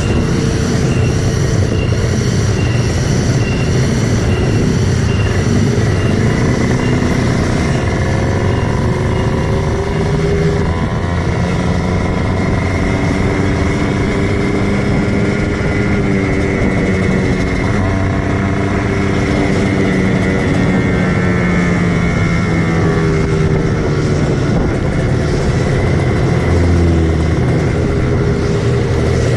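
Kawasaki Ninja 150 single-cylinder two-stroke engine running under way, its pitch rising and falling as the bike accelerates and eases off, over a steady rush of wind and road noise.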